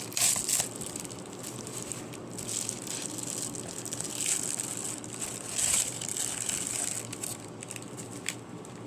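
Crinkly packaging rustling and crackling as a package is torn open by hand, in several louder bursts, the loudest just after the start and again about two-thirds of the way through.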